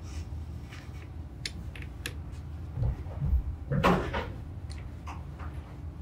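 Handling noise: a few soft low thumps about three seconds in, then one short, sharp knock or clatter just before four seconds, over faint scattered ticks.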